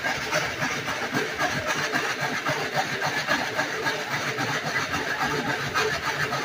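Slatmill clattering under a running dog: the treadmill's slats rattle in a fast, even rhythm as the dog drives them round.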